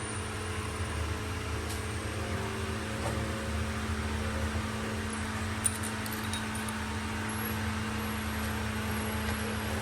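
Steady workshop machinery hum with a constant low drone, and a single light click a little over halfway through.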